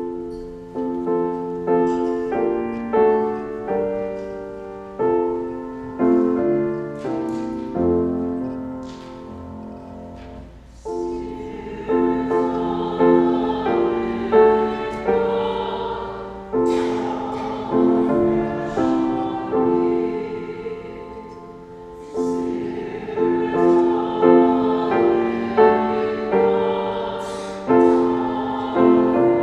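Slow piano music in full chords, each chord struck and then fading.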